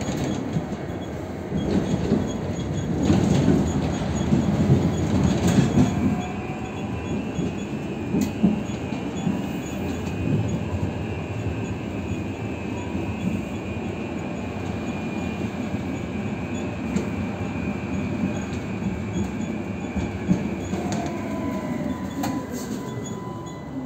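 Tatra T5C5K tram running on its rails, louder in the first six seconds with a few knocks from the track. A high whine rises about six seconds in, holds steady, and falls away near the end as the tram slows.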